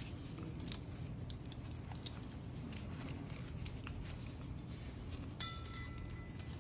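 Nylon webbing and a metal bolt snap being handled while rigging a scuba cylinder: soft rustles and faint clicks, then one sharp metallic clink a little over five seconds in that rings on for about a second.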